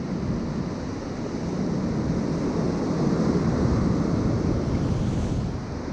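Wind buffeting the microphone over the steady wash of big ocean waves, swelling a little in the middle.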